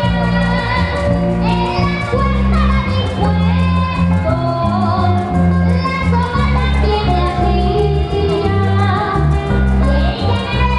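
A boy singing a Venezuelan llanero pasaje into a microphone in long, wavering notes, over a live string band with a deep bass line that changes in steps.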